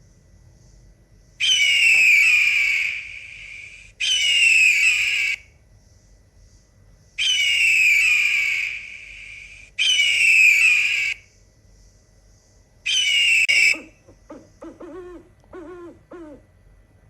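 A bird or animal giving five loud, shrill calls, each about a second and a half long and a few seconds apart. About fourteen seconds in, a quick series of short, lower-pitched calls begins.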